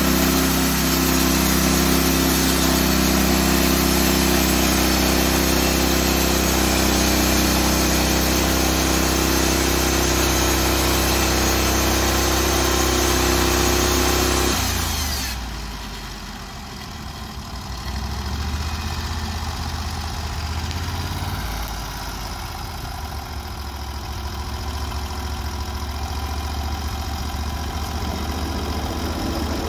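Portable band sawmill cutting through a log, its engine running under load with the blade in the wood. About halfway through, the cutting noise stops abruptly as the blade clears the end of the log, and the engine carries on more quietly at idle.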